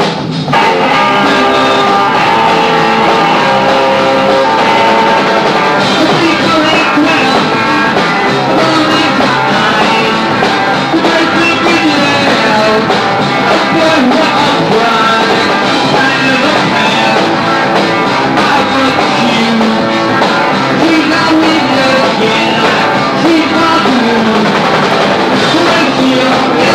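Live rock and roll band playing full out: electric guitars, bass and drums, kicking back in hard about half a second in after a brief drop.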